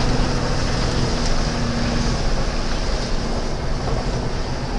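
Ford truck's engine running as the truck drives slowly, heard from inside the cab with the window down: a steady low hum with an even hiss over it.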